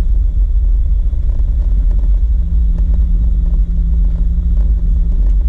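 Jeep Wrangler driving: a loud low rumble with scattered small clicks. A steady engine drone comes in about two and a half seconds in.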